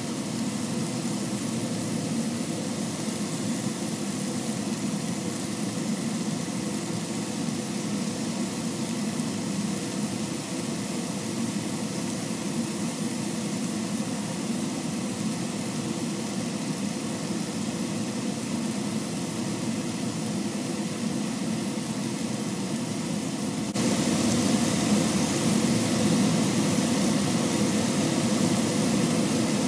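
Chicken strips and beef steaks sizzling on a hot griddle pan as tongs turn them, under a steady hum. The sound gets louder about 24 seconds in.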